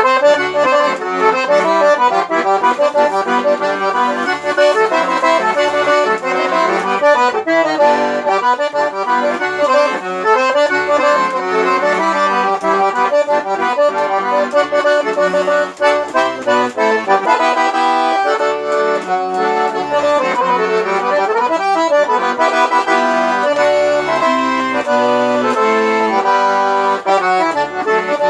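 Accordion (sanfona) playing an instrumental melody in chords, with separate low bass notes sounding beneath it.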